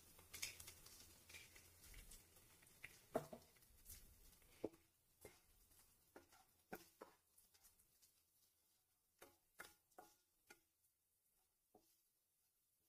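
Faint, irregular taps and scrapes of a wooden spatula against a nonstick frying pan as crumbled mawa is stirred and roasted in ghee. The strokes are closer together in the first few seconds, then come sparser.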